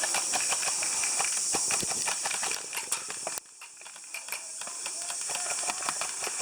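Irregular crunching footsteps and rustling, as of someone moving on foot through dry brush, over a steady high hiss. The sound drops suddenly about halfway through, then builds back up.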